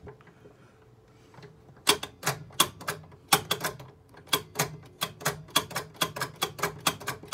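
Electromechanical stepper unit of a Gottlieb Card Trix pinball machine being stepped by hand. Its ratchet gives a run of sharp metallic clicks, about three or four a second, starting about two seconds in.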